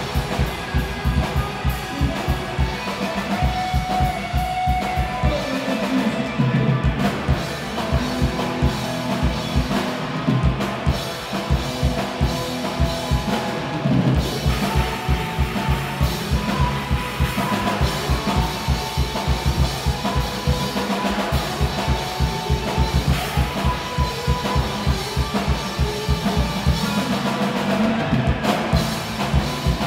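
Rock band playing live, the drum kit to the fore with a steady kick and snare beat under amplified instruments.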